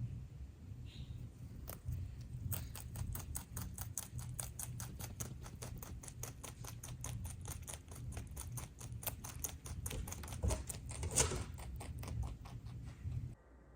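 Rabbit chewing fresh greens: a fast, even run of crisp crunching clicks, about six a second, with one louder crunch near the end before the sound cuts off suddenly.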